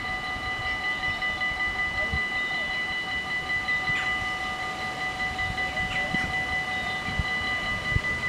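Dutch level-crossing warning bells ringing with quick, even strokes, several bells at different pitches sounding together as the warning that the barriers are down and a train is due. One of the lower-pitched bells stops about seven seconds in.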